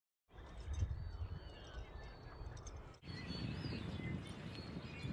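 Outdoor ambience: wind rumbling on the microphone, with small birds chirping now and then. The sound dips for a moment about three seconds in, then carries on the same.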